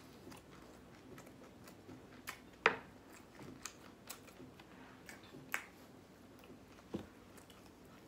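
A person chewing fried chicken, with scattered sharp crunches of the breaded crust; the loudest comes a little under three seconds in.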